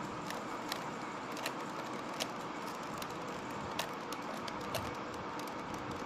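Plastic Rubik's cube layers being twisted by hand, giving sharp, irregular clicks several times over a steady background hiss.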